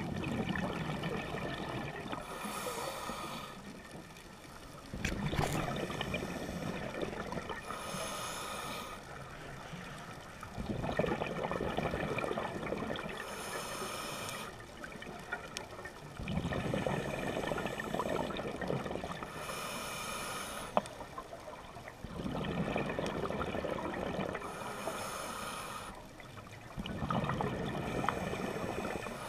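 Scuba diver breathing through a regulator underwater: a short hissing inhale, then a longer, louder rush of exhaled bubbles, the cycle repeating about every five to six seconds.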